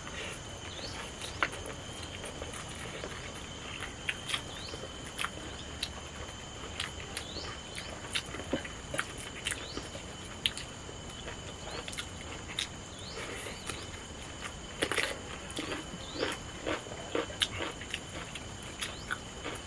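A person eating: chewing, with many short sharp clicks and smacks, over a steady high insect drone.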